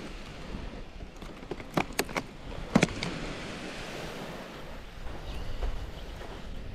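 Clear plastic clamshell bait box being handled and shut: a quick run of sharp plastic clicks and crackles, the loudest about three seconds in, over a steady hiss of wind and surf.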